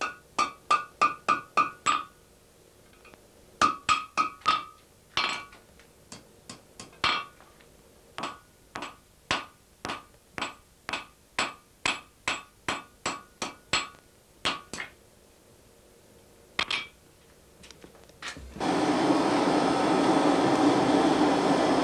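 Blacksmith's hand hammer striking hot iron on an anvil, each blow ringing, in quick runs of blows with short pauses, then a slower steady beat of about two blows a second. About three seconds from the end the hammering stops and a steady rushing of air starts as the forge fire is blown up.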